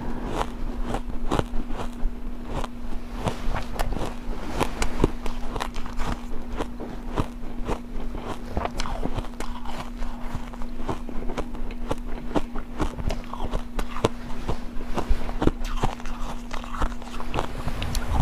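Close-miked chewing of refrozen ice chunks: a continuous run of sharp, irregular crunches and crackles as the ice breaks between the teeth, with a faint steady hum beneath.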